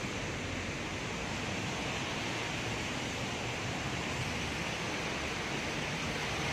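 Heavy rain falling steadily with wind, a continuous even hiss.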